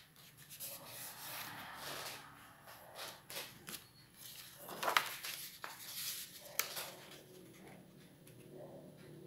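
A sheet of black paper being folded and creased by hand: fingers rubbing and sliding along the folds in uneven rustling strokes, with short crinkles and a sharp crackle of paper about five seconds in.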